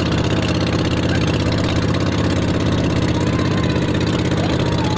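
Boat engine running steadily with an even, rapid pulsing beat.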